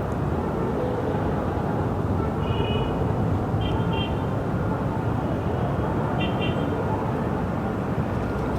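City ambience: a steady rumble of distant traffic, with a few short high-pitched chirps, about two and a half, four and six and a half seconds in.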